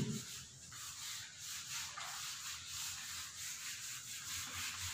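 Whiteboard being wiped clean by hand: a run of quick, repeated rubbing strokes.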